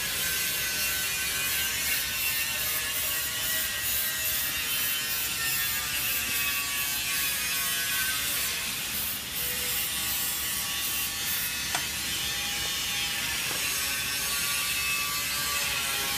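Aerosol can of spray-on trim adhesive hissing steadily as it is sprayed.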